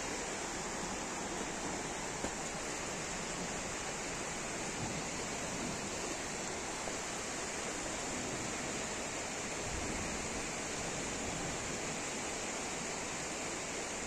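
Steady rushing of a fast-flowing river swollen with muddy rainwater, a constant even roar of water.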